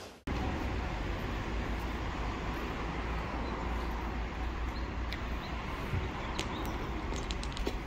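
Steady low background rumble, with a few short high chirps or ticks in the second half.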